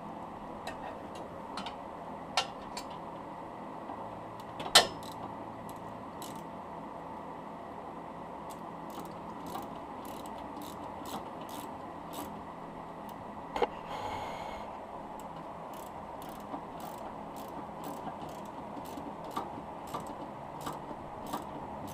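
Hand ratchet clicking as it runs the four mounting bolts up into the rear coilover's top plate, in runs of quick clicks. A few sharp metal knocks stand out, the loudest about five seconds in.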